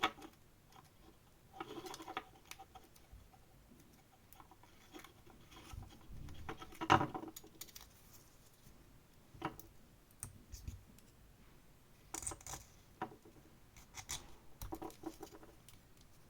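Plastic parts of a Canon PIXMA inkjet printhead being handled and pried at during disassembly: scattered clicks, scrapes and light knocks at irregular times, the loudest about seven seconds in.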